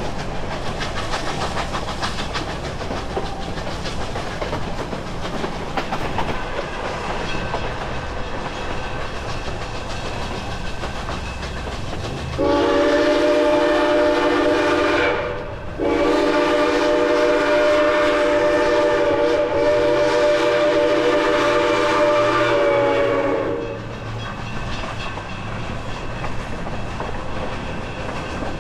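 Narrow-gauge steam locomotive's chime whistle blowing near the middle: a short blast of about three seconds, then a long one of about eight seconds, several tones sounding together. Under it and around it, the steady rumble and clickety-clack of the coaches rolling on the rails.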